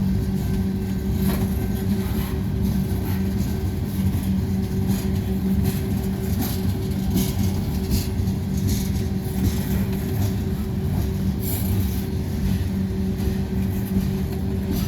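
Freight train rolling past, a steady heavy rumble with a low steady tone and repeated clacks from the wheels on the rails.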